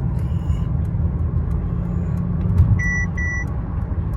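Steady low rumble of road and drivetrain noise inside the cabin of a 2024 Mercedes-Benz S580 at highway speed. About three seconds in, two short high-pitched warning beeps sound in quick succession from the car.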